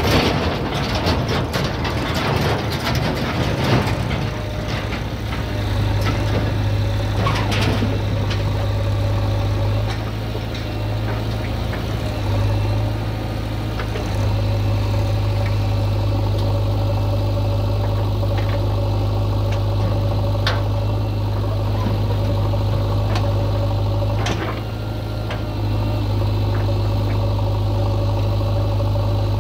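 Diesel engine of a tractor or backhoe loader idling steadily, with a run of rattling and knocking over the first few seconds and a few sharp clicks later on.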